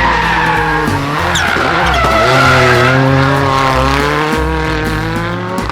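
Revving race-car sound effect over background music with a steady bass beat; the engine note dips about two seconds in, then climbs steadily.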